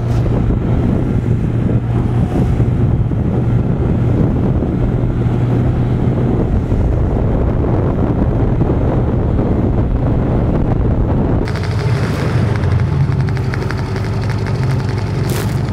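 Outboard motor driving an inflatable boat at speed, a steady low engine drone under heavy wind buffeting on the microphone. About three quarters of the way through, the engine note changes as the motor is throttled back toward idle.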